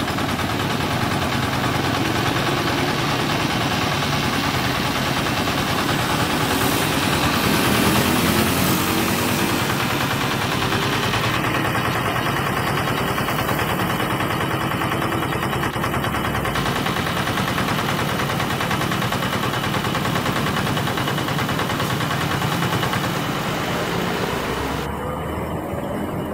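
Kubota single-cylinder diesel engine running steadily, driving the belt-driven pump of an asphalt sprayer.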